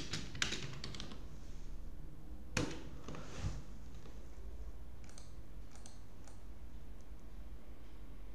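Computer keyboard being typed on in a quick run of key clicks for about a second, then a few separate clicks further apart, the last ones faint, over a low steady hum.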